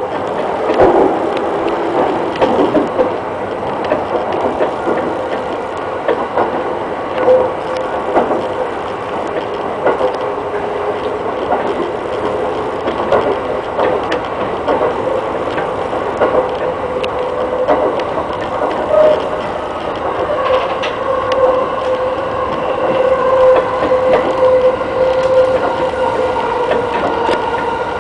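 E217 series electric train running, heard from the driver's cab: wheels clicking over rail joints, with a steady whine.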